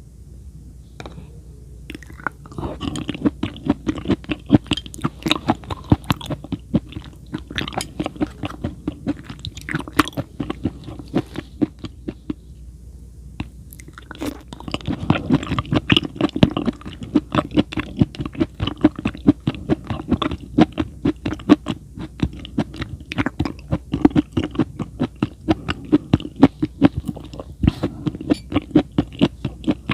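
Close-miked chewing of raw food in a steady rhythm of crunchy bites. It pauses for a couple of seconds about halfway through, then starts again.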